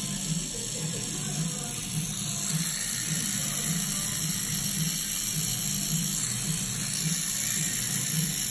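Coil tattoo machine buzzing steadily as it runs.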